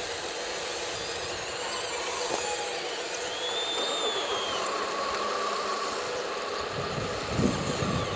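Radio-controlled construction models running: a steady motor hum with a high whine that rises and falls about halfway through, and a short low thump near the end.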